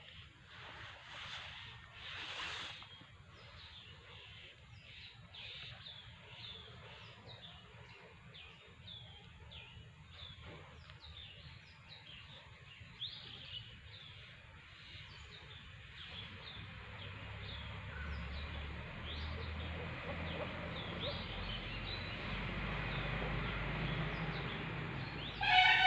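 Ducklings peeping: a long run of short, high, falling peeps, several a second, over a low rumble of background noise that grows louder in the second half.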